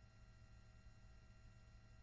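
Near silence: only a faint steady low hum, with no distinct sound events.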